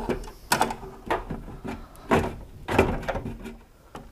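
Insulated electrical wires being pushed and pulled through a sheet-metal electrical enclosure, with about five short scrapes and knocks of wire on steel.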